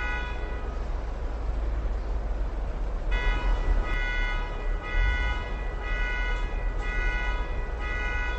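Car alarm sounding its horn in a regular on-off pulse, a bit more than one honk a second. The honking breaks off shortly after the start and resumes about three seconds in, over a steady low rumble of street background.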